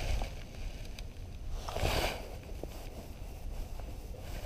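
Wind rumbling steadily on the microphone aboard a kayak, with water lapping at the hull and two louder swells of splashy noise about two seconds apart.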